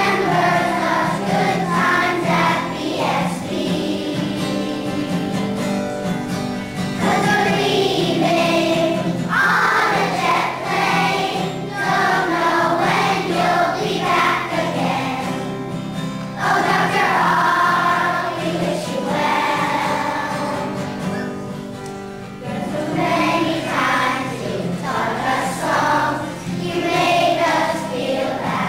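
A choir of young children singing a song together in phrases, with a short break between phrases about sixteen seconds in.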